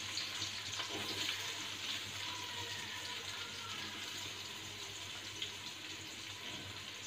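Sliced onions frying in hot sunflower oil: a steady sizzling hiss that slowly quietens as they settle into the oil.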